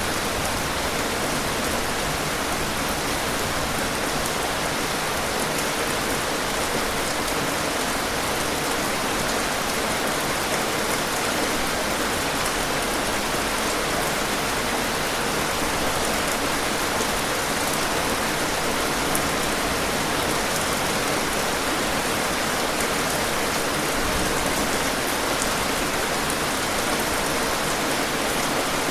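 Steady, even rain falling and pattering on surfaces, with faint scattered drop ticks.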